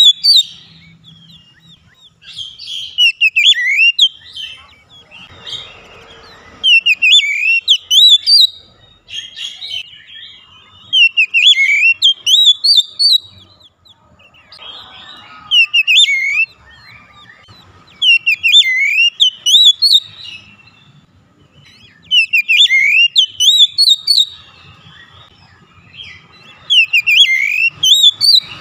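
Oriental magpie-robin (kacer) singing loud, repeated phrases of rapid whistled sweeps and chirps, each burst a second or two long with short pauses between.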